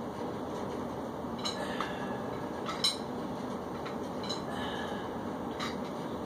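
A few light metallic clinks and ticks, the loudest about three seconds in, over a steady background hiss: a dumbbell and weight bench shifting as a dumbbell is worked overhead from a lying position.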